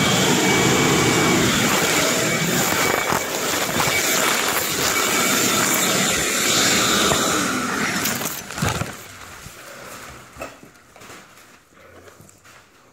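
Vacuum running with a loud, steady rush of air, used to pull grinding dust out of the room. It drops away sharply about eight and a half seconds in, leaving only a few faint knocks.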